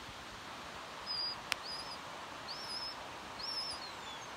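A wild bird singing: four or five short, high whistled notes, some rising and then falling, over a steady background hiss. A single sharp click about a second and a half in.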